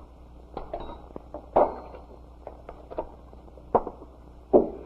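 Light taps and clinks of kitchen utensils, about five spread over a few seconds, over a steady low hum.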